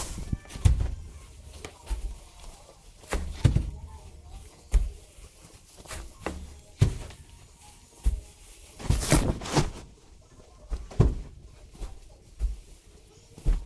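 Irregular knocks and thumps, roughly one every second or so, with a quick run of louder knocks about nine seconds in.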